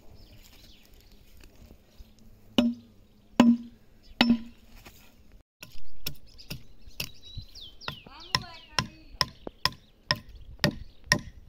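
Wood being hewn by hand for an ox-cart axle: three heavy axe chops into the timber, each with a short ringing thud. Then a quicker run of lighter strikes, about two a second, as a small adze dresses the squared beam.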